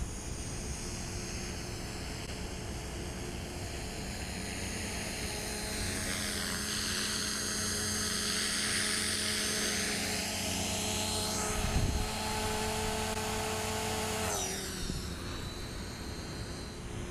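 Blade 450 electric RC helicopter flying: a steady motor whine with rotor blade noise. It grows louder in the middle, with a brief low thump about twelve seconds in, and the whine drops sharply in pitch about fourteen seconds in.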